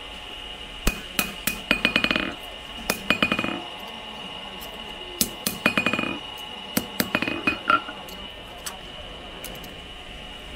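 Blacksmith's hammer striking steel on an anvil with a ringing clink, in four quick bursts of rapid blows with short pauses between; the hammering stops about eight seconds in.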